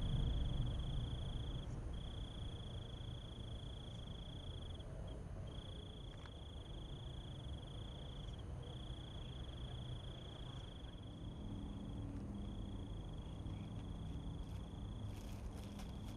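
A cricket trilling: one steady high-pitched trill, broken by short gaps every second or two. A low rumble fades out in the first couple of seconds, and a few faint clicks come near the end.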